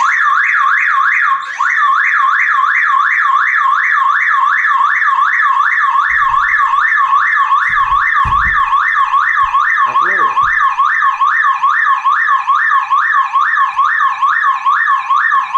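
Car alarm siren sounding loudly in a fast up-and-down warble, about three sweeps a second, set off by disconnecting the negative battery cable: the anti-theft alarm reacts to the loss of battery contact. There are a few low thumps around the middle.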